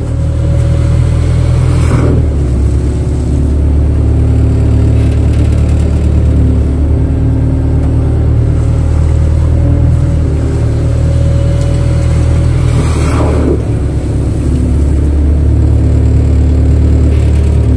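Kato crawler excavator's diesel engine running steadily under hydraulic load, its note shifting as the machine works. A short higher-pitched sweep comes about two seconds in and again near thirteen seconds.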